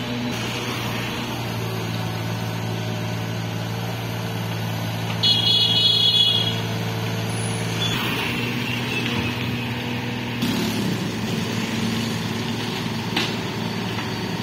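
Tata Hitachi ZAXIS 33U mini excavator's diesel engine running with a steady hum, its note changing around eight seconds and again about ten seconds in as the hydraulics push the boom down to lever the machine up onto a truck bed. A short, loud high-pitched tone sounds about five seconds in.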